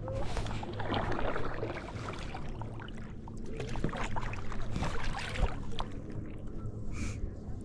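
Stand-up paddleboard being paddled across a lake: irregular splashing of the paddle blade in the water and water lapping against the board, busiest about a second in and again around four to five seconds in.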